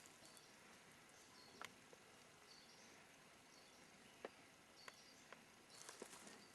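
Near silence of quiet open-air ambience, with faint short high chirps of a small bird about once a second and a few light clicks.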